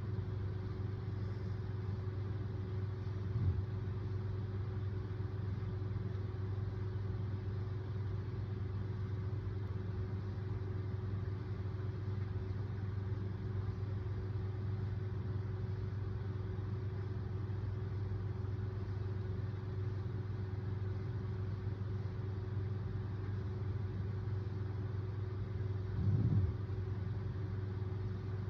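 A steady low hum with a faint steady tone running through it. Two short low sounds break in, one about three seconds in and a longer one near the end.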